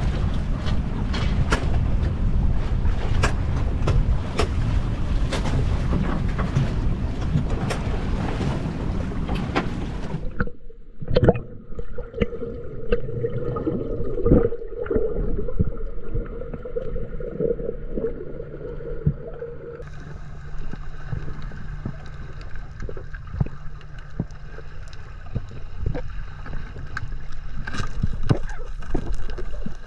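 Wind buffeting the microphone over choppy water on a boat for about ten seconds, then a sudden change to muffled underwater sound: a steady hum, bubbling and scattered clicks and taps.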